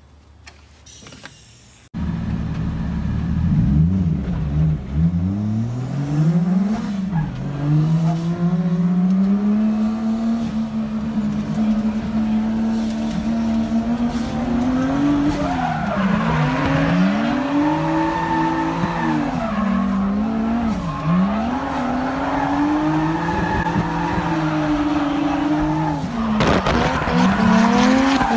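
From about two seconds in, a 1JZ-swapped Nissan S13 drift car's engine is revving hard, its pitch rising and falling over and over as it is driven through a drift. Tyres squeal with it.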